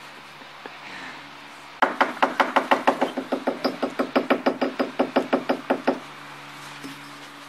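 A rapid, even run of about two dozen sharp knocks, some six a second, starting about two seconds in and stopping abruptly about six seconds in, over a faint low hum.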